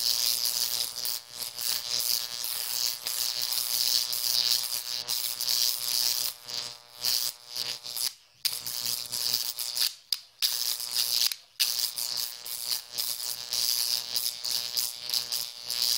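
A 15,000-volt transformer arc crackling and buzzing as it jumps from a copper electrode through open air onto dry concrete mix, over a steady mains hum. The arc breaks off briefly a few times near the middle and strikes again.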